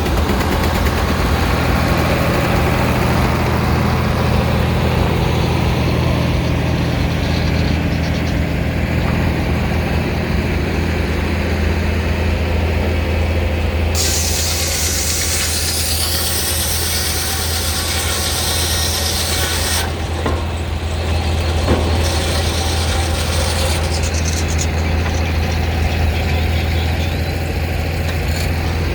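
Steam traction engine belt-driving a Frick sawmill, running with a steady low hum. About halfway through a loud high hiss-like rush starts suddenly and lasts about six seconds, followed by a shorter, weaker one.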